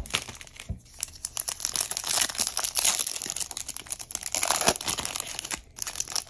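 Foil wrapper of a Bowman baseball card pack crinkling as it is torn open by hand. The crackling grows dense through the middle and thins out near the end.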